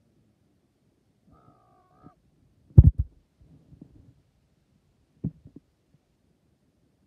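Dull low thumps of the handheld camera being knocked and handled. The loudest cluster comes about three seconds in and two softer knocks follow about five seconds in. Just before the thumps there is a brief wavering high tone.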